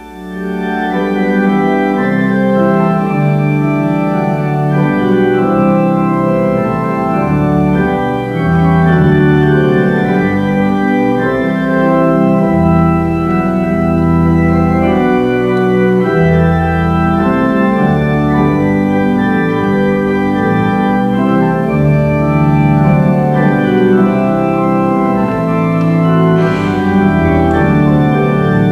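Organ playing slow, sustained chords that swell in at the start, with deep bass notes coming and going underneath.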